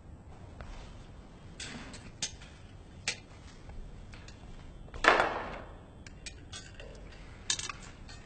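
Scattered clinks and knocks of dishes and cutlery. About five seconds in there is one louder rushing clatter that fades over about half a second.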